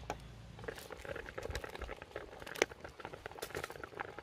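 Food bubbling in a pot at the boil: a dense run of small irregular pops and crackles, with one sharper click about two and a half seconds in.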